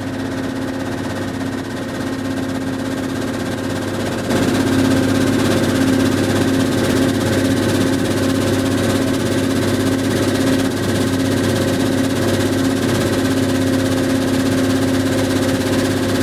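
Mobile crushing and screening line running: a steady mechanical drone with a dense, fast rattle, typical of crushers and screens working stone. It grows louder about four seconds in.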